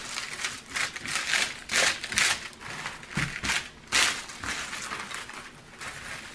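Clear plastic film over a diamond painting canvas crinkling and rustling as hands smooth it flat, in uneven bursts.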